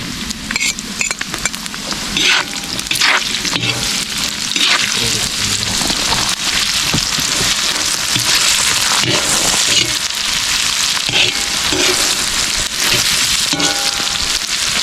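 Onions just added to fried meat, sizzling in hot oil in a big pan over a wood fire: a loud, steady frying hiss that builds over the first few seconds. Short scraping strokes run through it as the pan is stirred.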